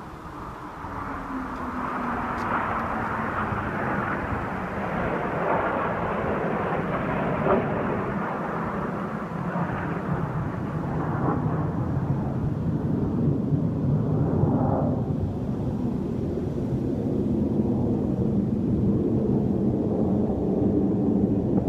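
Jet engines of a formation of display jets flying overhead: a continuous roar that swells within the first second and then holds, with a few slow falls in pitch as the jets pass.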